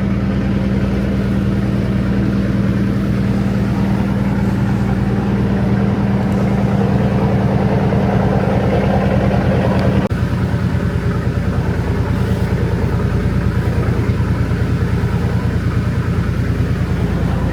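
Engine running steadily with a low, even hum, changing abruptly about ten seconds in to a slightly pulsing drone.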